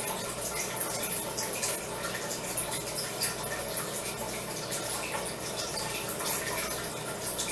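A steady rushing, water-like hiss peppered with rapid faint crackles: room sound from a time-lapse sped up sixteen times.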